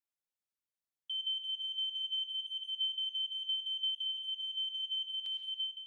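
Smoke alarm sounding one continuous high-pitched tone that starts about a second in. A sharp click falls near the end.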